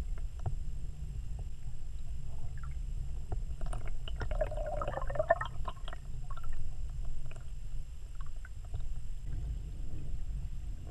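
Underwater ambience: a steady low water rumble with scattered small clicks, and a brief gurgle about four to five seconds in.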